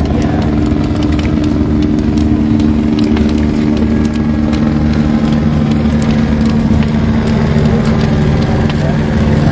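An engine running steadily at a constant speed, with a low hum of several held tones and no revving. Faint sharp ticks sound over it.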